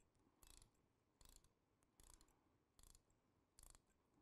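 Near silence with about five very faint clicks, evenly spaced a little under a second apart: the ratchet of a dental torque wrench turning an implant fixture in during final seating.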